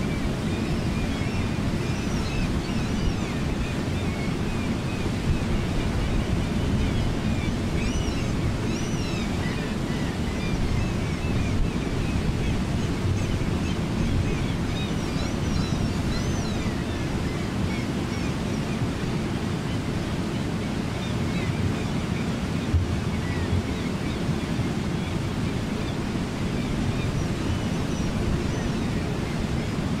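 Steady rushing of river rapids, an even, continuous water noise heaviest in the low range, with faint high chirps scattered over it.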